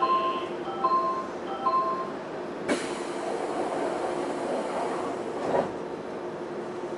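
Door-closing chime on a stopped Semboku Rapid Railway 5000 series commuter train: a short electronic beep repeating about every 0.8 s for the first two seconds. Then a sharp knock as the doors shut, a hiss of air, and a second knock about five and a half seconds in.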